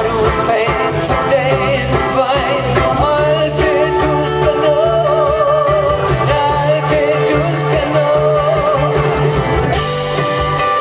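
Live pop-rock band playing with a lead vocal; the singing gives way to the instruments near the end.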